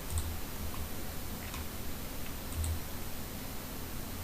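Computer mouse clicking three times, about a second apart, as edges are picked on screen.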